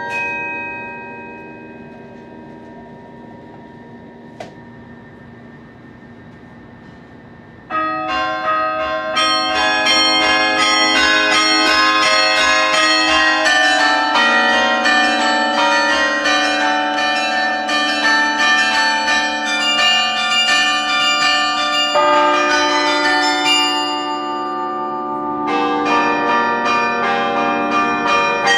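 Carillon bells played close up: a chord rings on and slowly dies away, then about eight seconds in a new passage starts, loud, with many bells struck in quick succession and in chords, ringing over one another.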